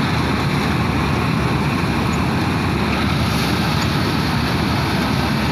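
Combine harvester running steadily as it cuts the crop: engine and machinery together make a continuous, even noise with a heavy low rumble.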